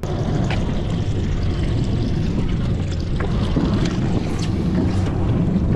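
Wind buffeting the microphone: a steady, loud low rumble, with a few faint clicks from handling the float rig.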